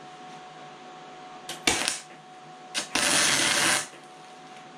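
MIG welder tacking steel: short bursts of the arc about a second and a half and two seconds in, then a longer one of under a second about three seconds in. The welding was done with the shielding gas forgotten.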